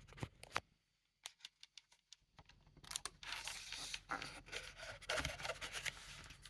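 Paper rustling and scraping as a book's pages are handled: a few light clicks at first, a brief lull, then steady rustling from about three seconds in.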